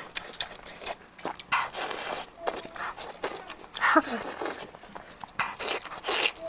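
Close-miked eating sounds: tearing, biting and chewing the sticky, sauce-coated skin of a braised pig's trotter, with irregular wet smacks and clicks.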